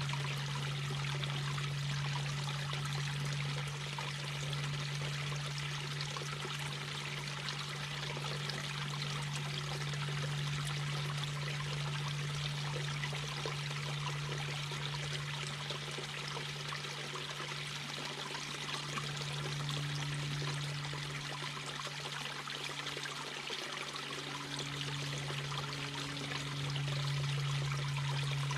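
Mountain brook babbling: steady running, trickling water, with a steady low hum underneath.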